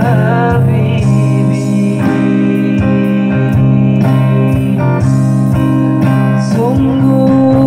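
Guitar strummed in a steady rhythm for a sholawat song, with a man's singing voice through a microphone over it near the start and again near the end.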